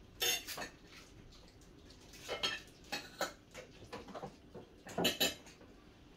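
Cutlery clinking and scraping against dinner plates during a meal: scattered short clinks, a pair near the start, more around three seconds in, and a louder pair about five seconds in.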